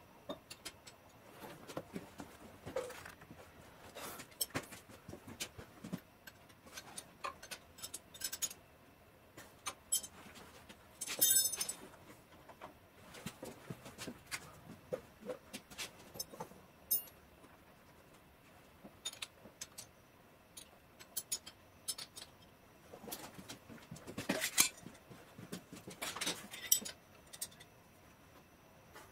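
Scattered metallic clinks and taps of wrenches and hydraulic fittings being handled and tightened on a mower frame, with a louder burst of rattling clinks partway through.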